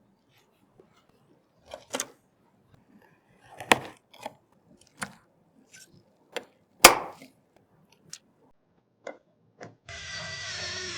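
Computer parts being handled: a series of irregular sharp clicks and taps of hardware, the loudest about seven seconds in. Near the end a steadier sound with several held tones sets in.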